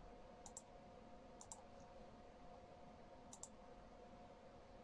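A few faint computer mouse clicks, scattered over several seconds, over near-silent room tone with a faint steady hum.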